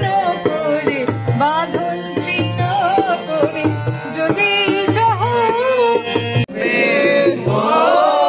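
Live Indian song: a woman singing with harmonium and tabla accompaniment, the tabla's bass drum stroking steadily underneath. About two-thirds through it cuts off sharply and a group of young men sing together in unison.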